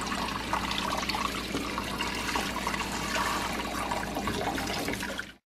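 Water running from a kitchen sink sprayer and splashing over a wet dog's coat into the sink; it cuts off abruptly near the end.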